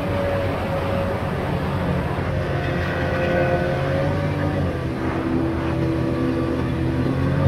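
Tohatsu M40C 40 hp two-stroke three-cylinder outboard running steadily under way, with water rushing along the aluminium hull. The engine note shifts slightly about halfway through.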